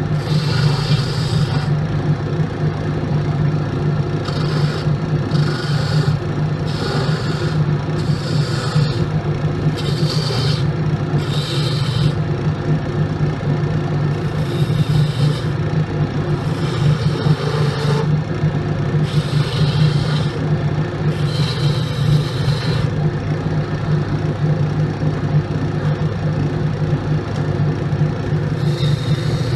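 Grizzly wood lathe running with a steady motor hum while a hand-held gouge cuts the spinning wooden blank. The cuts come as repeated scraping, shaving bursts of about a second each with short gaps between them. Past the middle there is a longer stretch of hum alone, and cutting starts again at the very end.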